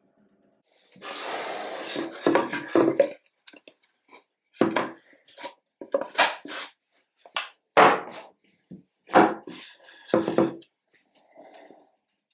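Plywood boards being handled over a workbench: a couple of seconds of scraping and rubbing, then a string of sharp wooden knocks and clatters, about one a second, as the pieces are knocked against each other and set down.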